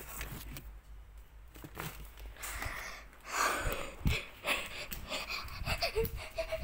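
Breathy noise close to a phone's microphone, strongest in the middle, with scattered knocks and rubbing as the phone is handled and moved.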